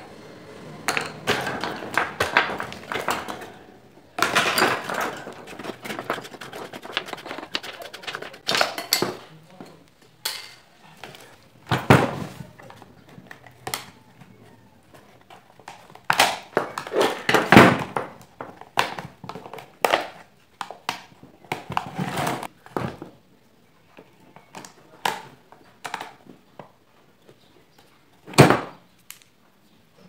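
Irregular clattering, knocking and rattling of a Ventisol fan's metal grille and motor parts, and of tools, as the fan is taken apart by hand. The sharpest knocks come about 17 seconds in and near the end.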